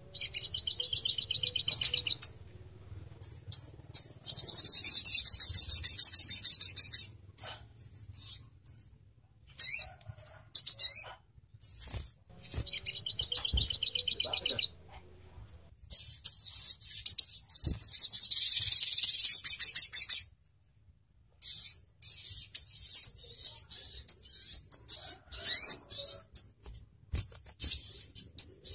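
Olive-backed sunbird (sogon ontong) singing: several fast, high trills of two to four seconds each, with short sharp chirps between them. After a brief silent gap about two-thirds of the way through, only scattered chirps follow.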